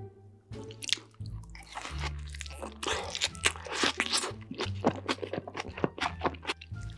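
Close-miked eating: crisp crunching bites and chewing of a burger with shredded lettuce, smothered in cheese sauce. Background music with low bass notes runs underneath.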